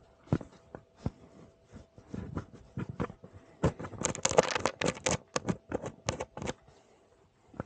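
Handling noises: irregular clicks, taps and scrapes of hands working with tools and small parts, busiest in the second half, over a faint steady hum.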